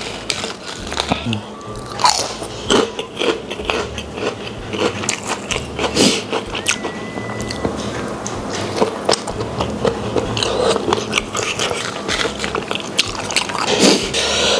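Close-up eating sounds: crisp crunching of kerupuk crackers and chewing of squid and rice, with many small crunches and wet mouth clicks.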